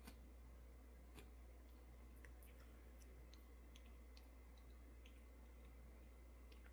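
Faint, irregular clicks and ticks, densest in the middle, from a cat biting and tugging at the ball on a slipper.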